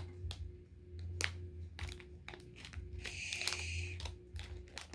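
Plastic candy packaging being handled and pried at, giving scattered clicks and crinkles, with a brief high squeak about three seconds in.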